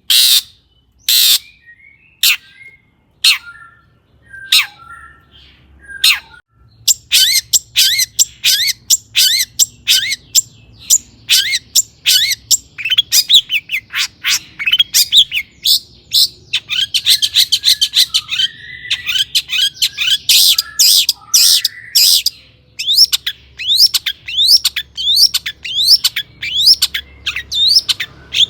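Long-tailed shrike (cendet) singing: for the first six seconds, loud harsh calls about once a second, then from about seven seconds in a fast, continuous run of chattering, sweeping notes.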